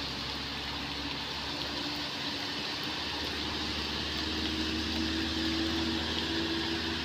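Light diesel box truck engine pulling hard up a steep, wet climb, its steady note growing louder about four seconds in, over a constant hiss of rain and wet road.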